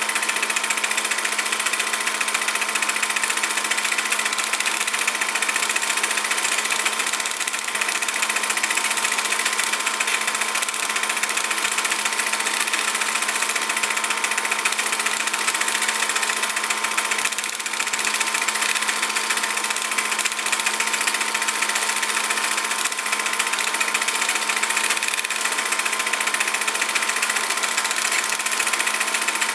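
Steady, unchanging mechanical whirring with heavy hiss and a constant hum underneath.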